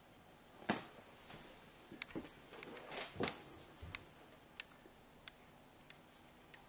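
Faint handling noise of a plastic sun-oil bottle being taken from a bag: a knock about a second in, then a cluster of clicks and brief rustling, thinning to a few light ticks.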